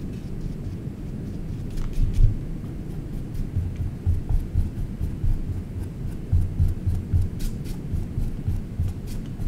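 Paintbrush scrubbing back and forth across a stretched canvas. The strokes make an irregular run of soft low thumps, several a second from about two seconds in, over a steady low hum.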